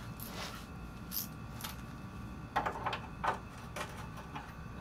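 Scattered light clicks and knocks of hand tools and metal parts being handled while the small tow-hook brackets are unbolted from under the car, with a small cluster of clicks about halfway through.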